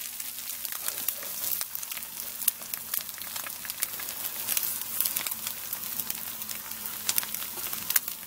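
Fried eggs sizzling on the hot enamel-coated griddle plate of a Weber Q 1000 gas grill: a steady hiss with many small crackles.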